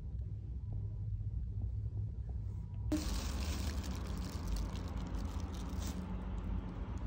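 Quiet background noise of a room: a low rumble, changing abruptly about three seconds in to a brighter hiss with a few faint clicks.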